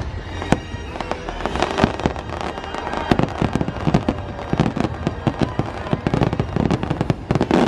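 Aerial fireworks barrage: rapid overlapping bangs and crackles over a steady low rumble, growing denser and louder from about three seconds in.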